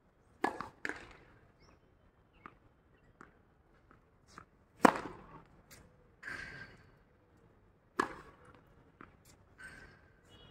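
Tennis ball hit with rackets and bouncing on a hard court: a few sharp single pops, about half a second and one second in, the loudest about five seconds in and another about eight seconds in, with shoe scuffs and footsteps between.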